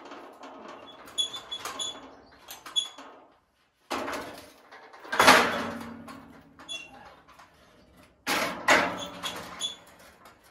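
Steel scaffolding parts clanking and knocking together as they are handled and fitted, metal ringing after the hits. Light clinks in the first few seconds, then the loudest clank about five seconds in and two more heavy clanks about eight seconds in.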